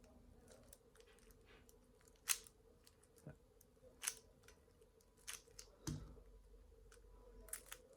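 Plastic 3x3 speedcube layers being turned past 45 degrees to test corner cutting: a handful of faint, scattered clicks and snaps as the pieces cut the corner and settle into place.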